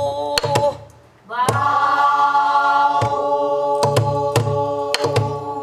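Pansori singing: a slow line of long held, wavering notes, with strokes of a buk barrel drum beaten with a stick falling irregularly underneath. The voice breaks off briefly about a second in, then comes back on a long held note.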